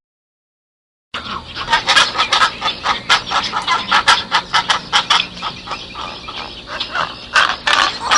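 Silence for about the first second, then poultry calling in a dense, rapid string of short, sharp calls.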